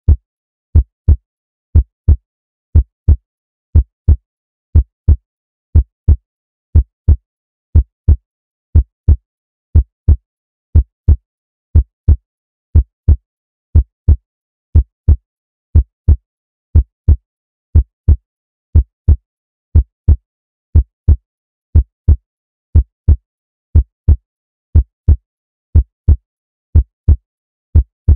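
Heartbeat sound effect: a steady lub-dub, two low thumps close together, repeating about once a second.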